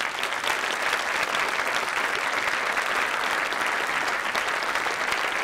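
Audience applauding steadily: a dense, even clatter of many hands clapping.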